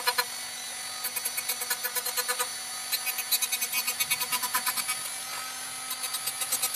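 Dremel rotary tool with a cutoff disc whining steadily while grinding the tops of a bandsaw blade's teeth one after another to sharpen them: a quick rhythmic series of short grinding bursts, about six a second, with brief pauses about half a second in and near the end. The sound is sped up fourfold.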